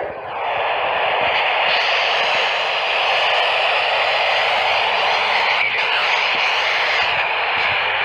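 Radio static: a steady, even hiss from a radio receiver carrying no speech, with one faint click a little before six seconds in.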